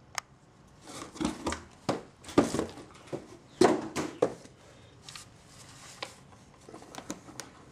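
Handling noise as a wooden phonograph motor board carrying a Victor spring motor is lifted and turned over on a cardboard box. A run of knocks, clunks and cardboard scrapes comes in the first half, loudest about two and a half seconds in and again about three and a half seconds in, then a few light clicks.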